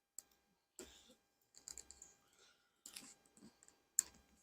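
Faint, scattered clicks and light knocks from wooden honey-super frames being handled and turned during a hive inspection. There are about half a dozen short ticks, irregularly spaced, with a sharper click about four seconds in.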